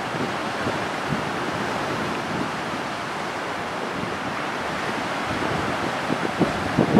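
Rough sea in a strong southwesterly gale: a steady rush of wind and choppy waves, with gusts buffeting the microphone near the end.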